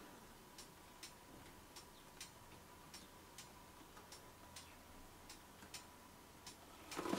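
Near silence: room tone with faint, evenly spaced ticking, about two and a half ticks a second, and a faint steady tone underneath.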